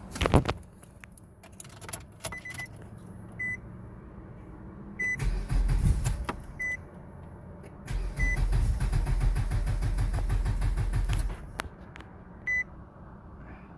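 2003 Nissan Altima four-cylinder engine being cranked by the starter without catching: a short crank about five seconds in, then a longer, evenly pulsing crank of about three seconds that stops suddenly. This is a start attempt on a car that would not start, just after the suspected faulty part was replaced. A short electronic warning beep repeats through it.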